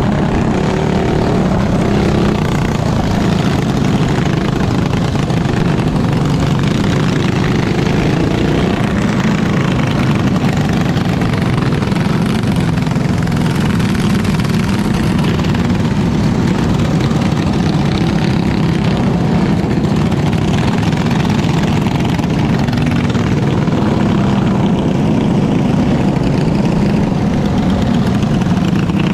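Superstock racing kart's engine running hard, heard onboard, with its pitch rising and falling with the throttle through the turns and other karts' engines close around it.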